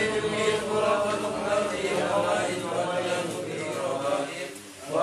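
Melodic Islamic devotional chanting in Arabic (sholawat), a continuous recitation with a short pause between phrases near the end.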